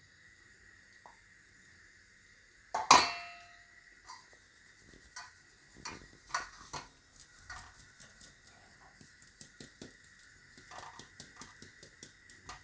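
Stainless-steel flour sieve shaken and tapped against a steel plate while sifting jowar flour. There is one loud metal clank about three seconds in, then light, rapid taps and rattles of the sieve rim that grow busier toward the end.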